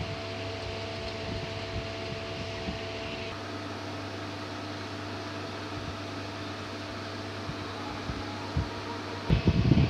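CNC lathe running while turning a gear shaft: a steady machine hum with several constant tones, which change about three seconds in. Loud, irregular low rumbling begins just before the end.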